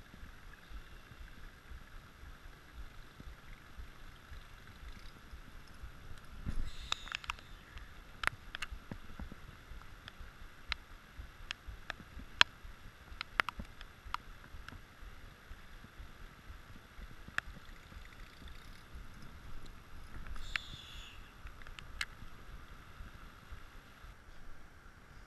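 Steady heavy rain falling on a pond and the brush around it, with scattered sharp ticks and two brief bursts of brighter hiss, one about seven seconds in and one about twenty seconds in.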